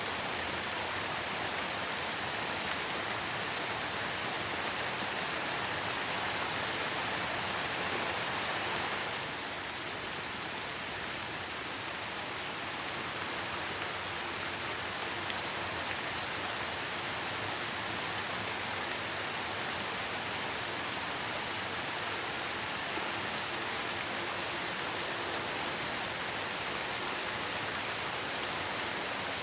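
Steady rain falling, an even hiss that eases slightly about nine seconds in.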